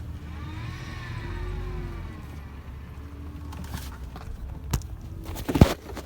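Pickup truck engine running with a low rumble, its pitch rising and falling once in the first couple of seconds. Two sharp knocks near the end.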